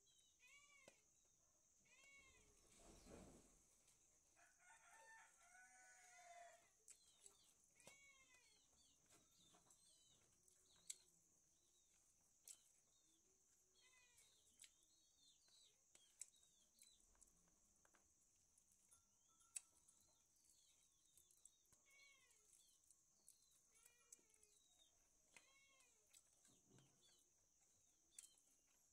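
Faint chickens chirping and clucking, short calls repeating about once a second with a busier burst of lower calls about five seconds in, over a steady high hiss and scattered small clicks.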